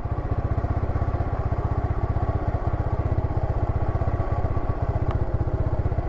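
Harley-Davidson motorcycle engine running at low revs with a steady, even pulsing beat, about ten pulses a second.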